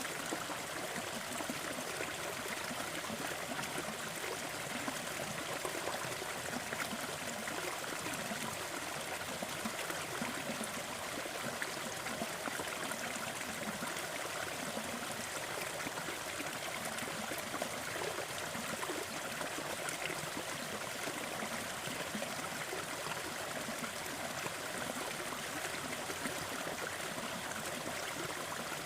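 Gentle waterfall: water falling and splashing in a steady, even rush that does not change.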